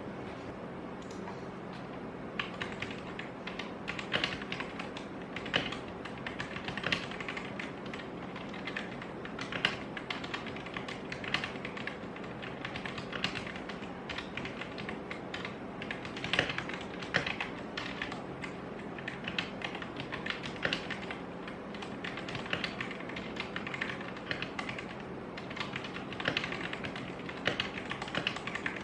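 Typing on a Rexus Daxa M71 Pro mechanical keyboard with stock Gateron Yellow linear switches: a dense, irregular run of keystroke clacks that starts about two seconds in. A steady low hum runs beneath.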